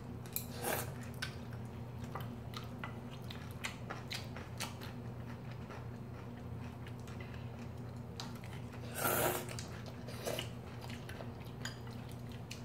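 Close-up eating sounds of two people eating instant ramen and rice: chewing, slurping of noodles, and scattered light clicks of chopsticks and a spoon on ceramic bowls, with one longer, louder slurp about nine seconds in. A faint steady low hum sits underneath.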